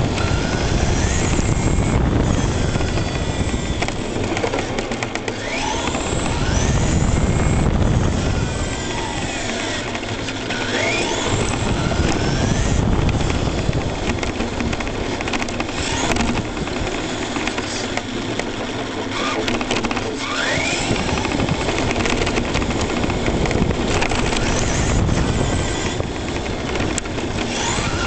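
Brushless electric motor of an ECX Torment RC truck whining, its pitch rising and falling again and again as the throttle is worked. Under it runs a steady rumble of tyres on asphalt, heard close up from a camera riding on the truck's roof.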